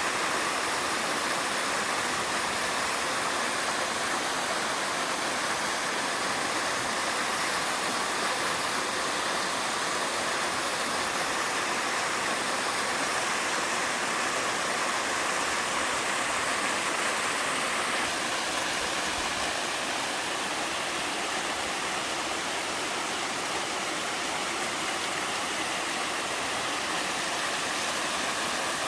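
Mountain waterfall splashing and a stream rushing, a steady full hiss with no let-up.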